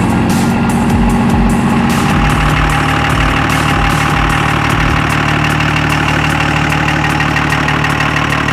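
The 5.9-litre Cummins 24-valve inline-six diesel of a 2001 Dodge Ram 2500, idling steadily.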